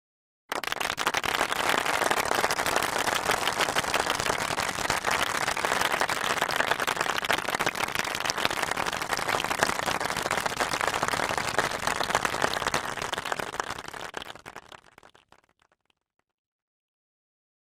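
A crowd applauding: dense clapping that starts abruptly, holds steady for about fourteen seconds, then fades out.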